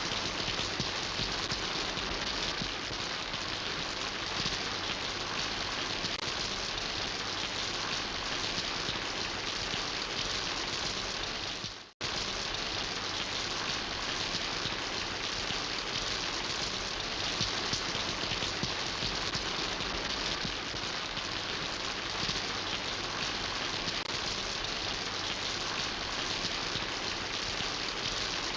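Steady rain falling, a dense even patter of drops. About twelve seconds in it fades out to silence for a moment and comes straight back.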